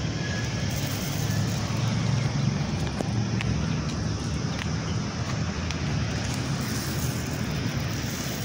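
Steady low outdoor rumble with a few faint ticks on top.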